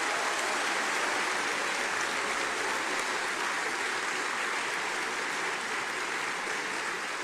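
A large audience applauding: a sustained, even round of clapping that eases slightly near the end.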